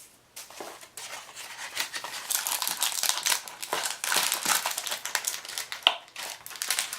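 Packaging crinkling and rustling as it is handled and unwrapped, with many small crackles and clicks.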